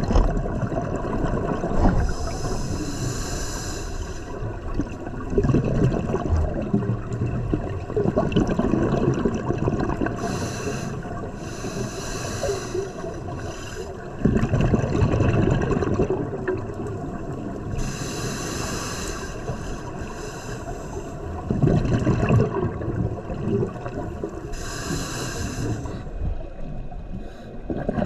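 Scuba diver breathing through a regulator underwater: a hissing inhale every several seconds, each followed by a low, bubbling rush of exhaled air, about four breaths in all.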